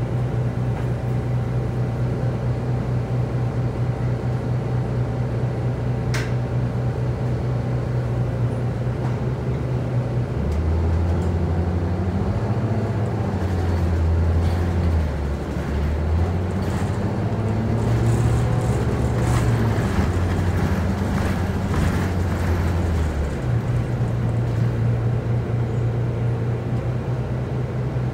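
Orion VII city bus's diesel engine heard from inside the cabin, idling steadily while the bus stands still. About ten seconds in it grows louder and its note changes in several steps as the bus pulls away and goes up through the gears, then it settles back to a steady drone near the end. A single brief click comes about six seconds in.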